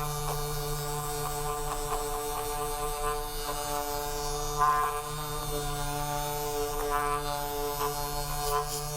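Steady droning background music with sustained tones, and a brief louder note about four and a half seconds in.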